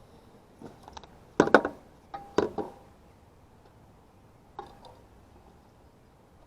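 Short clicks and clacks of tools and equipment being handled, in two quick clusters about a second and a half and two and a half seconds in, with one more click near the end.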